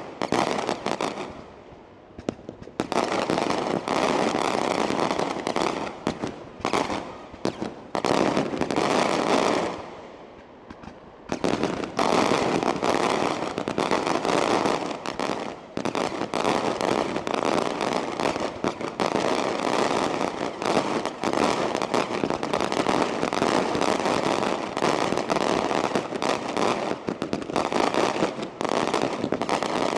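Daylight fireworks battery: aerial shells bursting into rapid, near-continuous strings of bangs and crackles. The barrage eases briefly about two seconds in and again around ten seconds, then builds back dense and steady.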